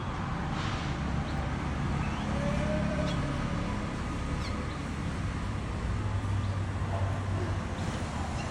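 Steady low rumble of road traffic, with a few short faint chirps above it.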